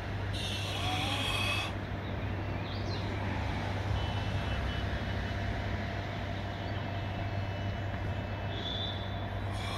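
Steady low engine hum over a constant background din. Shrill high-pitched tones sound for about a second and a half near the start and again near the end.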